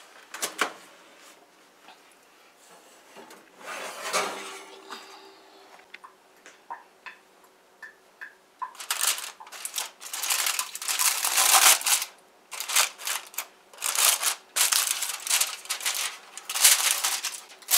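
Aluminium foil crinkling and crackling in repeated bursts as it is peeled off a baked cake pan, the loudest sound, filling the second half. Near the start a single knock as the oven door is opened.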